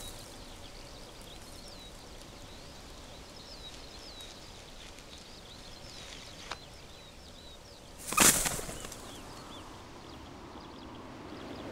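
Small birds chirping and twittering in the background over a faint outdoor hiss, with a sharp click about six and a half seconds in and a loud, brief whoosh of wingbeats about eight seconds in.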